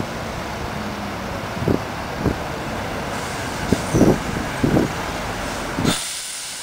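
MCW Metrobus double-decker bus engine running as the bus approaches and pulls in at a stop, over steady traffic rumble, with a few short low thumps. The sound drops away abruptly near the end.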